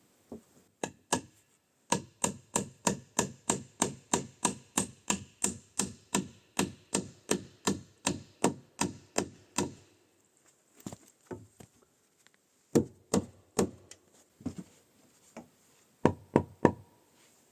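Hammer striking, likely driving nails into wood: a fast, even run of blows at about three a second for roughly eight seconds, then slower, scattered single and double knocks.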